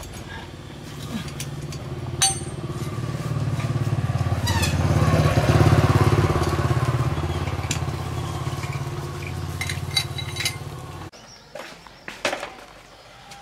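A motor vehicle engine running steadily, growing to its loudest about halfway through and then fading, and cutting off abruptly near the end; a few light metal clinks sound over it.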